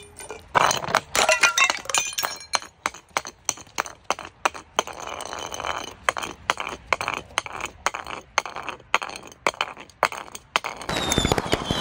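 Glass jars clattering and clinking down concrete steps, with glass breaking: a fast, irregular run of sharp knocks with a glassy ringing, densest about a second in and again in a burst near the end.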